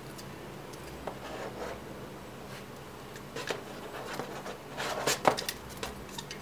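Hands turning over a Swiftech Apogee Drive II CPU water block: plastic and metal rubbing, with small clicks and knocks as the parts shift. The sharpest knock comes about five seconds in.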